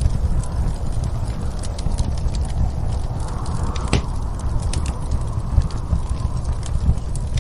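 Wood fire crackling with scattered pops over a steady low rumble of storm wind, whose hiss swells and fades in gusts.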